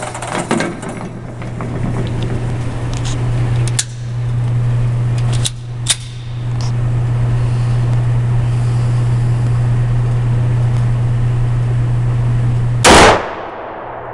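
A single loud handgun shot near the end, over a steady low hum, with a few faint sharp clicks earlier on.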